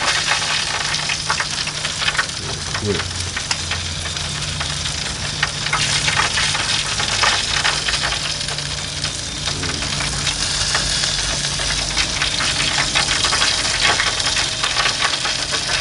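Propane gas grill sizzling and crackling as fat and juices drip from two rotisserie turkey breasts into the hot drip pan, with a low steady hum underneath.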